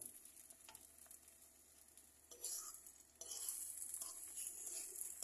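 Eggs sizzling in a frying pan while a fork stirs and scrapes them around the pan. The sizzle grows louder about two and a half seconds in and stays up.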